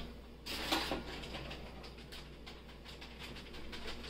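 Plastic spice packet crinkling and rustling as it is handled and spooned from, with a brief rustle about half a second in followed by light scattered clicks.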